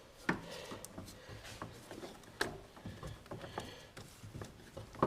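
Scattered light clicks and knocks from an ABS hydraulic pump module being handled and lined up to slide into its mount, a few sharp taps with quiet between, the loudest about two and a half seconds in.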